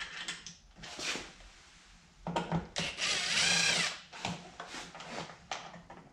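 Power drill with a Phillips bit running for about a second in the middle, its pitch rising then falling as it backs out a door trim panel screw, with a few light clicks and taps of the screws and plastic around it.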